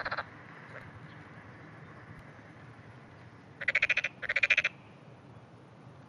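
Frogs croaking: a short call right at the start, then two rapid trilled croaks in quick succession about three and a half seconds in, each about half a second long.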